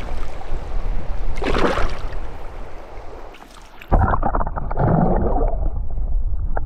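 Shallow river water sloshing and rushing around a brown trout held in the current for release, with a short splash about a second and a half in. About four seconds in the sound turns dull and muffled, heard from a camera under the water.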